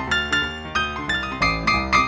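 Background piano music: a quick, even run of notes.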